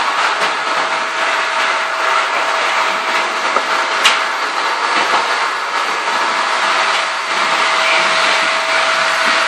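Steady rushing noise like a fan or motor running, with a faint constant hum underneath, and a single sharp click about four seconds in.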